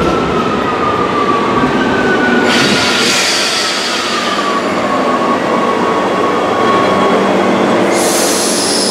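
Rome Metro Line A train pulling into an underground station and braking to a stop: a loud, steady rumble under a whine that slowly falls in pitch as the train slows. Bursts of high hissing come a few seconds in and again near the end.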